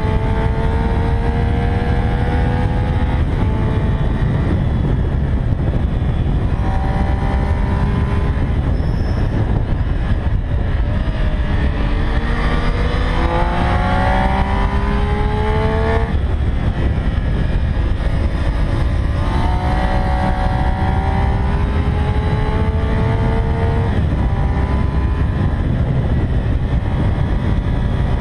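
A Triumph Street Triple R's 675 cc inline-three engine under way at speed, its pitch climbing steadily as it accelerates and dropping suddenly several times as the rider shifts or rolls off the throttle. Heavy wind rush on the mounted camera runs underneath.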